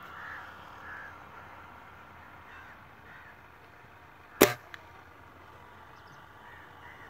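A single shot from an Artemis SR1000 air rifle, one sharp crack about four and a half seconds in. Faint bird calls come and go several times around it.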